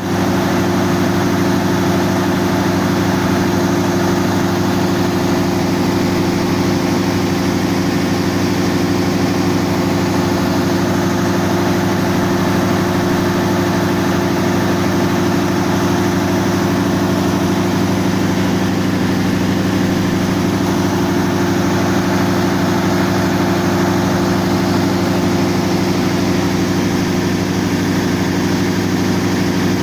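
A railway power car's diesel generator sets running steadily at constant speed. The sound is an even, unchanging hum made of several steady low tones over a layer of mechanical noise.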